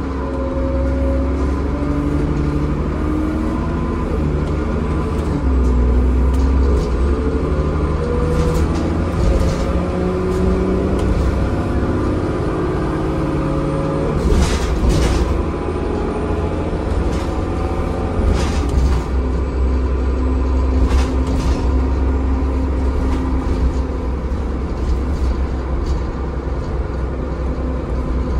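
Transbus Trident double-decker bus heard from inside while on the move: its diesel engine gives a deep, steady rumble with an engine note that rises and falls. Several knocks and rattles come from the body, the biggest about halfway through.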